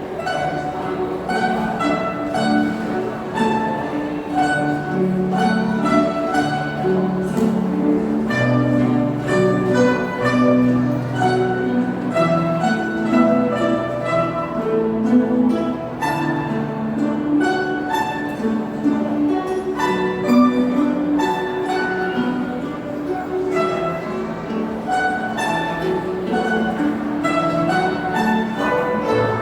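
Instrumental music of plucked and bowed strings, with many short plucked notes over sustained lower notes.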